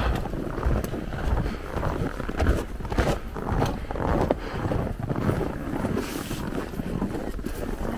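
Low rumbling wind and handling noise on an action camera's microphone, with irregular soft thumps scattered through it.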